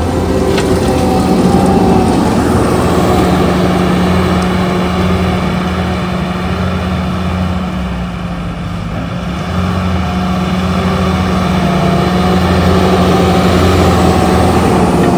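Bobcat skid steer's engine running hard, driving a hydraulic stump-grinding attachment through stumps and soil, with a steady low drone and a wavering whine above it. The engine sound eases briefly about eight seconds in, then picks back up.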